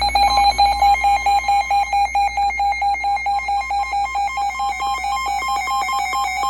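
Weather radio alert alarm for a warning: a loud, rapidly pulsing electronic beep tone, about six pulses a second, with a slightly higher second tone cutting in and out more often as it goes on.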